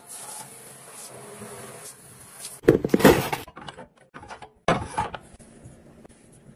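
Water from a swivel sprayer tap head hissing into a stainless steel sink, then a metal over-the-door hook rack rattling and knocking against a door as it is hooked over the top, in two loud bursts about two seconds apart.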